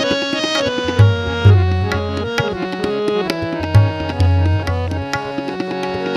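Instrumental interlude of a Bengali Shyama sangeet: tabla playing a steady rhythm with deep bass-drum strokes, under a harmonium carrying the melody in held, stepping notes.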